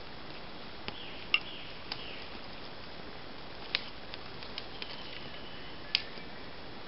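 A small, newly caught campfire of split kindling crackling, with a handful of sharp, irregular pops over a steady hiss. The loudest pop comes about a second and a half in.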